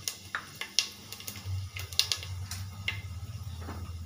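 Fennel seeds frying in hot oil in a pressure cooker, crackling with irregular sharp pops.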